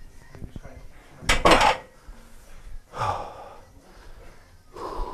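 Loaded barbell set back down on the gym floor with a loud clank of its metal plates about a second in, followed by the lifter's heavy breaths after the deadlift.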